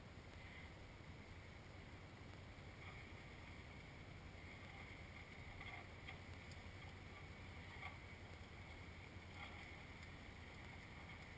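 Faint, steady low hum of ATV engines idling.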